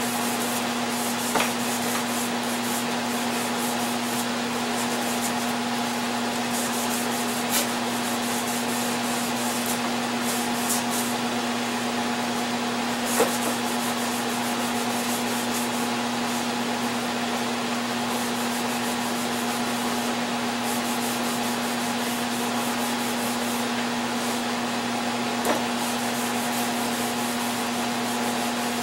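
Electric power sander running steadily against wood, a constant motor hum under the hiss of the abrasive, with a few faint clicks scattered through.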